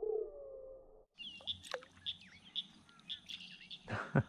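Small birds chirping, a short high call repeated about twice a second. Before them comes a brief low tone sliding down in pitch, from slowed-down slow-motion audio. Near the end there are two sharp knocks.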